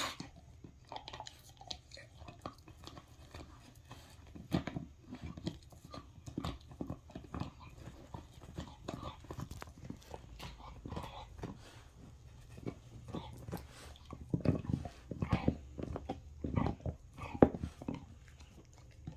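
Bull terrier chewing and mouthing a soft cloth, with irregular chomping clicks of the jaws that come louder and more often about three-quarters of the way through.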